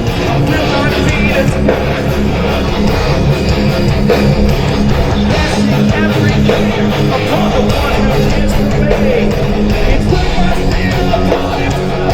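Live rock band playing an instrumental passage: electric guitars strumming a repeating low riff over a steady drum beat, with no vocals.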